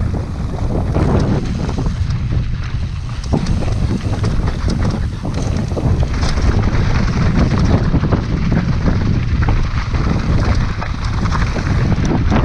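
Wind rushing over an action camera's microphone on a mountain bike descending a dirt trail, with a continuous rattle and clatter of tyres and bike over rough ground.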